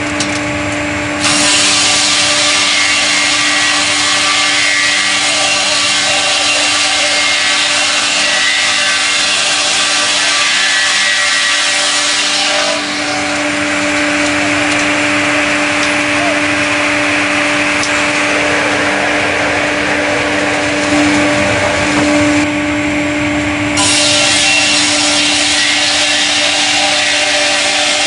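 A StrojCAD KR-58 twin-blade horizontal circular sawmill sawing a log, with a steady machine hum under the hiss of the blades in the wood. The cutting noise gets brighter about a second in, eases around the middle, and comes back strongly near the end.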